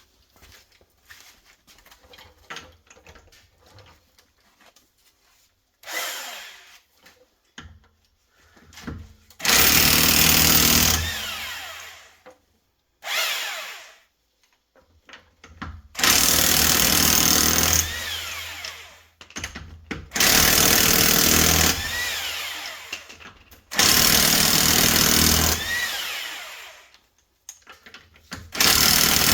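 Impact wrench running in repeated bursts of two to three seconds, about seven in all, each trailing off as it stops: lug nuts being zipped off a car wheel.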